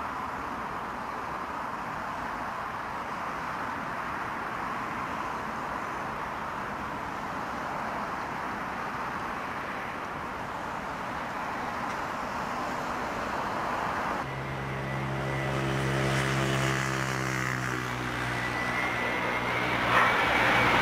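Airbus A350-900's Rolls-Royce Trent XWB jet engines on final approach, at first a steady distant rush. About fourteen seconds in, a low hum with shifting tones joins, and the sound grows steadily louder as the airliner closes in, with a high whine rising near the end.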